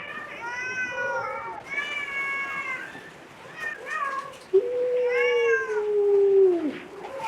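Cat meowing several times: a few shorter meows, then a long drawn-out meow of about two seconds that drops in pitch as it ends.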